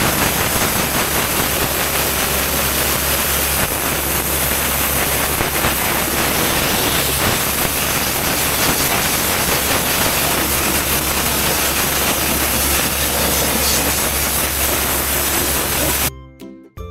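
Steady, loud hissing noise over a low mechanical hum, like a machine running continuously, cutting off suddenly near the end.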